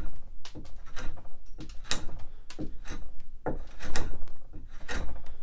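Drawknife slicing shavings off a round wooden spindle clamped in a shave horse: a quick series of short scraping cuts, about two strokes a second.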